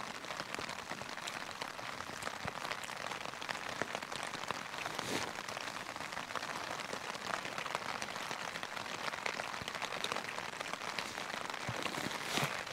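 Rain pattering steadily on the fabric of a Trailstar tarp shelter, a fine, even ticking of many drops with a few louder single clicks.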